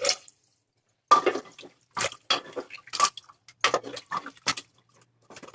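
A glass of water poured into a pressure cooker of frying yam curry, splashing and sloshing in a string of short, irregular bursts.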